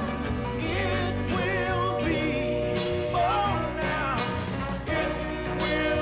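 Background music: a song with a vibrato-laden singing voice over band accompaniment.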